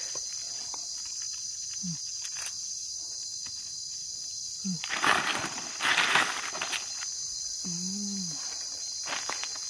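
Steady high-pitched chorus of insects. About halfway through, a couple of seconds of rustling and scraping in soil and dry leaves as a gloved hand digs at the ground.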